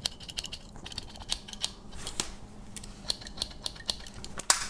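The small spring-loaded scissors of a Victorinox Explorer Swiss Army knife being worked open and shut: a run of light metallic snips and clicks, the loudest near the end.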